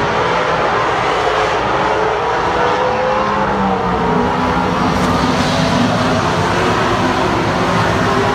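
A pack of stock race cars circling a short oval track, their engines running hard, with several engine notes rising and falling as the cars pass through the turn. The pack sounds nearest and brightest from about four to six seconds in.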